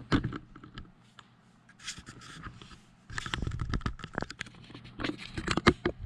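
Irregular scraping and knocking of objects being handled, with sharp clicks, densest in the second half.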